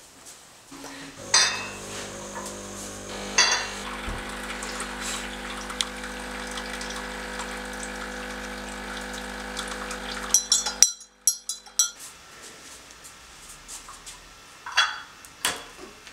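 Coffee machine running with a steady electric hum for about ten seconds, a couple of knocks as it starts, then cutting off suddenly. China cups and spoons clink a few times afterwards as the coffees are set out.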